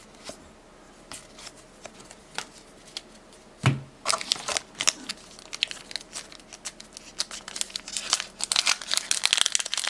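Foil booster-pack wrapper crinkling and tearing as a trading card pack is opened, beginning about four seconds in and growing busier toward the end, after a few faint clicks.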